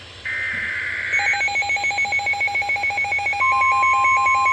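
Emergency alert SAME header: a second-long screechy digital data burst. Then a pulsing electronic alarm beep, about five or six pulses a second, announcing a new severe thunderstorm warning. Partway through, a steady single-pitch tone joins it, the weather-radio warning alarm tone.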